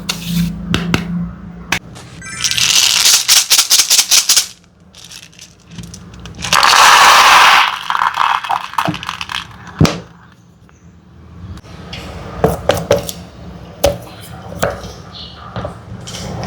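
Small hard candies poured into a container, rattling in two dense bursts, the second louder, with scattered clicks of single pieces dropping between and after.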